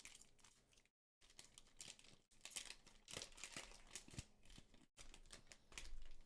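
Trading-card booster pack wrapper crinkling and tearing as it is opened, with faint crackles and rustles broken by a few abrupt cuts.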